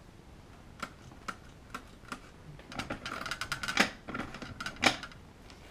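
Kaba Simplex 1000 mechanical push-button lock being worked by hand: a series of sharp clicks from its buttons and knob mechanism, a denser rattle of clicks in the middle, and one loud click near the end.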